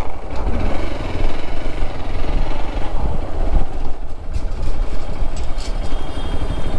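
Motorcycle engine running steadily as the bike rolls slowly at low speed.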